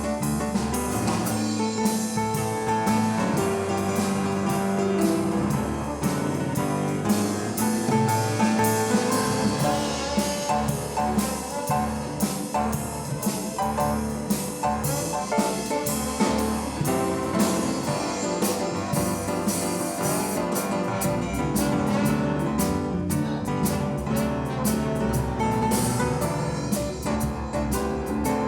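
Instrumental jazz music with piano and drum kit, keeping a steady beat.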